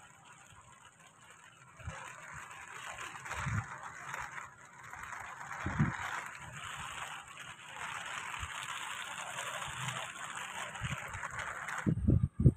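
Water sloshing and splashing, growing louder, with a few dull thumps; it cuts off suddenly near the end, followed by loud low knocks.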